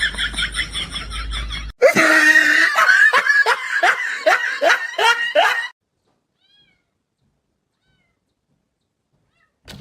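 A cat making a rapid run of short repeated meows, each falling in pitch, about three a second. They cut off abruptly a little past halfway into silence.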